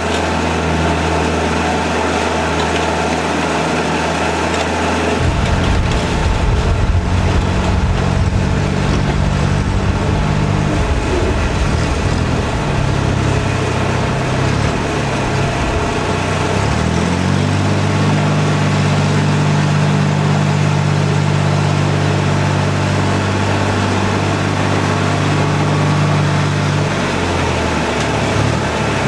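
Skid-steer loader's engine running while it scoops and carries soil, the engine speed rising and falling several times as it works.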